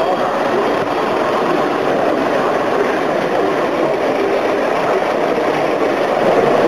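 S gauge model trains running on the layout's metal track: a steady rolling rumble of wheels on rails and electric motors humming.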